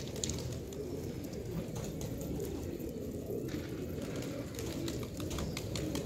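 A large flock of domestic pigeons cooing together in a steady, overlapping murmur, with scattered light clicks.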